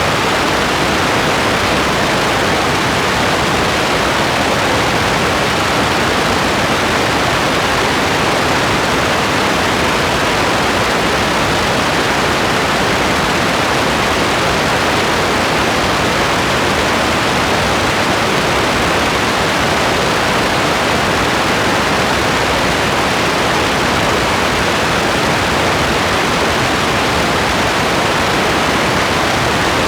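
Steady rain: a loud, even hiss of falling water with no separate drops or patter standing out, unchanging throughout.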